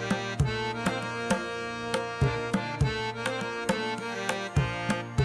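Background instrumental music with tabla keeping a steady beat, about two strokes a second, over held melodic notes.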